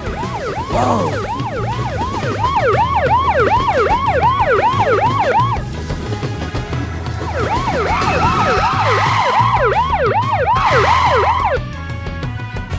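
Cartoon police siren sound effect: a fast rising-and-falling wail of about three sweeps a second. It comes in two runs, the first about five seconds long and the second about four, over background music.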